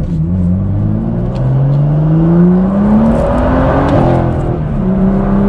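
BMW M2's N55 turbocharged straight-six, running a catless downpipe, pulling hard under acceleration, heard from inside the cabin. The engine note climbs steadily for about three seconds, drops with an upshift of the manual gearbox about three and a half seconds in, then climbs again.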